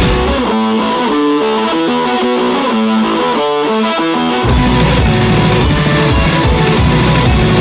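Rock music recording: from about half a second in the low end drops out, leaving a plucked guitar melody stepping through notes, and the full band with bass comes crashing back in at about four and a half seconds.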